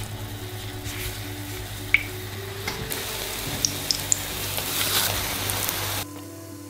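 Hot oil sizzling in a nonstick frying pan as potato-dough flatbreads are laid in, with a few sharp spitting pops; the sizzle swells, then cuts off suddenly near the end. Soft background music plays underneath.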